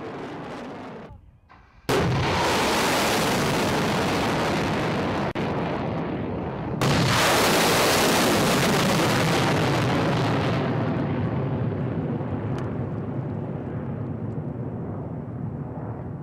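Missile launches: a sudden blast about two seconds in gives way to the steady rush of a rocket motor, then a second sudden blast of rocket exhaust near seven seconds slowly fades away.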